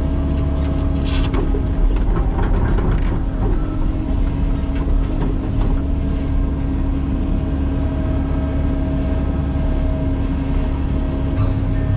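Cat 308E mini excavator's diesel engine and hydraulics running steadily as heard from inside the cab, a low drone with a steady whine. A few clicks and knocks from the working bucket and tilt-rotator come in the first three or four seconds.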